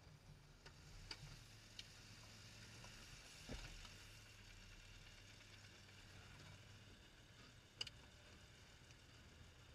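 Faint, muffled low hum of a Jeep Wrangler's engine as it crawls slowly over the camera, with a few sharp ticks and clicks, a low knock about three and a half seconds in and the loudest click near the end.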